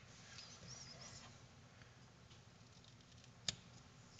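Near silence, with one sharp click about three and a half seconds in: a metal teaspoon knocking against a Bromwell carbon-steel frying pan while it pries at the pan's label.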